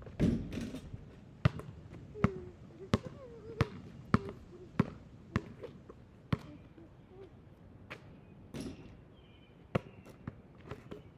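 Basketball dribbled on an asphalt street, a sharp bounce about every two-thirds of a second for several seconds. Just after the start and again about eight and a half seconds in comes a louder, ringing hit of a shot striking the backboard and rim.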